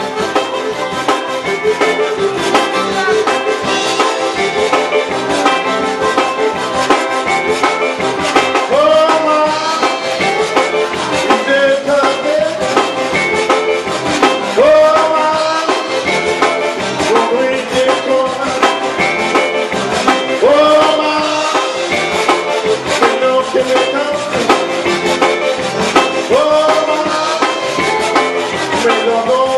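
A live zydeco band playing: a diatonic button accordion, fiddles, a rubboard (frottoir) and drums. From about eight seconds in, a man sings repeated phrases over the band.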